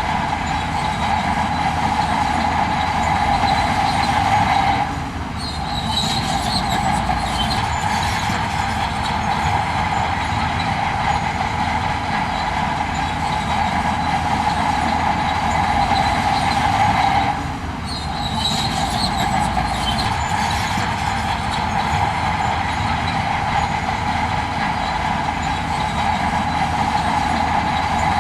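Heavy earthmoving machinery running under steady load, a continuous engine and drivetrain drone with metallic squeaking. It eases off briefly twice, about five seconds in and again a little past halfway, each time followed by short high squeaks.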